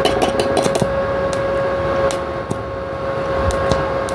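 Inverter stick welding machine set to 40 amps humming with a steady held tone. A stick electrode clicks sharply against the steel workpiece as the welder tries to strike an arc: a quick run of clicks at the start, then single clicks every half second to a second.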